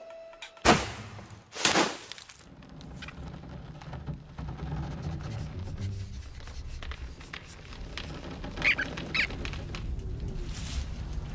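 Cartoon sound effects: two sharp hits about a second apart, then a low rumbling noise that slowly builds, with a few short high squeaks near the end.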